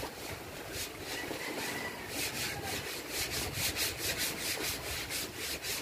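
Paintbrush scrubbing back and forth on a wooden boat hull, brushing on epoxy primer in quick, scratchy strokes. The strokes become faster and more regular from about two seconds in, at roughly four a second.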